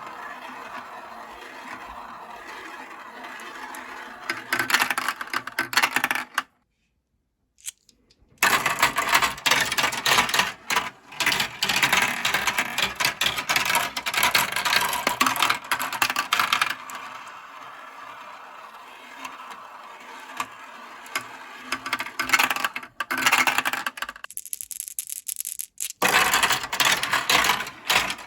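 Marbles rolling and clattering down plastic Kumikumi Slope marble-run track, a dense rattle of many small clicks. It stops dead for about two seconds roughly a quarter of the way in, then comes back louder.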